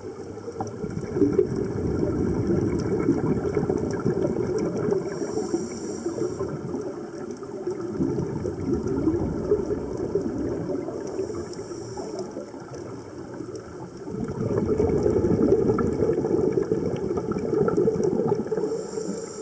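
Scuba regulator breathing underwater: long runs of bubbling, crackling exhaust bubbles, broken by short hisses of inhalation, about three breath cycles.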